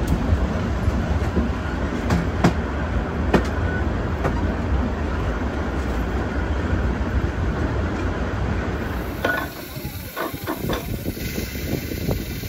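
Train running along the track: a steady low rumble with scattered clicks of the wheels over rail joints. About nine seconds in, the rumble suddenly drops away to a quieter background with a few knocks.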